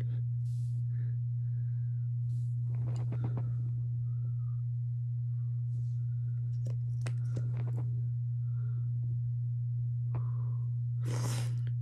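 A steady low hum, the loudest thing throughout, with faint rustles and light clicks from a mascara tube and wand being handled.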